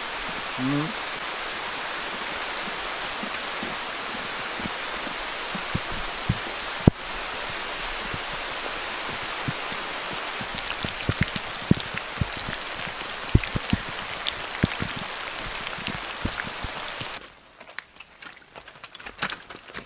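Rain falling in woodland: a steady hiss with many single drops ticking close by on leaves. About seventeen seconds in, the hiss cuts off suddenly, leaving only scattered drips.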